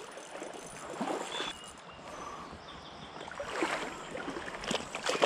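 Water sloshing and splashing over the creek's flow as a large hooked brown trout thrashes on the line, with irregular small splashes that grow busier after the middle.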